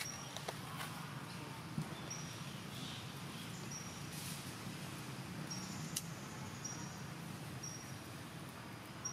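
Outdoor ambience: a short, high chirp repeating about once every second or so over a steady low hum, with a faint tap or two.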